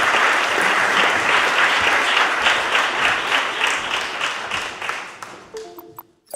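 Audience applauding, loud at first and dying away near the end.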